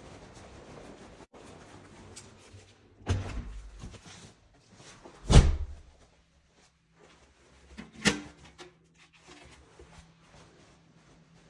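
Three sharp bangs, a couple of seconds apart, the middle one the loudest, with a faint low hum between them.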